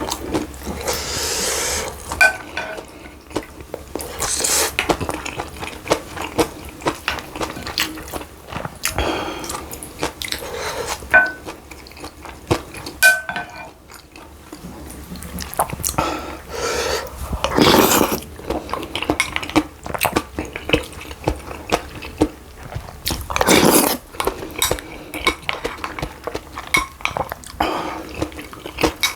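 Spoon and chopsticks clicking and scraping against a bowl while eating, in irregular clicks with a few short ringing clinks.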